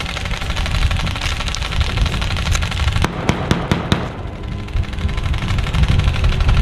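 Airsoft gunfire: a quick string of about six sharp shots about three seconds in, over a steady low rumble.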